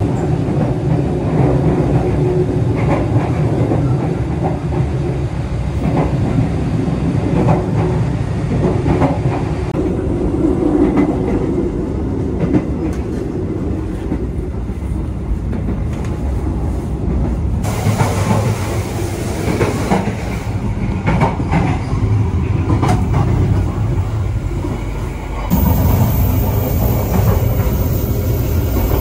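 Executive-class passenger train coach running along the line: a steady rumble of the carriage, with the clickety-clack of wheels over the rail joints. The sound changes abruptly twice, about two-thirds of the way in and again near the end.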